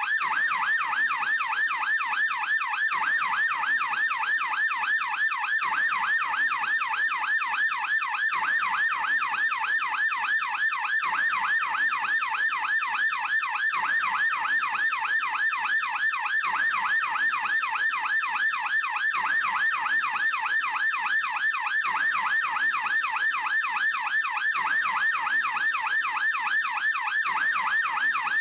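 Swiss police car siren in fast yelp mode: a rapid, steady up-and-down wail repeating several times a second.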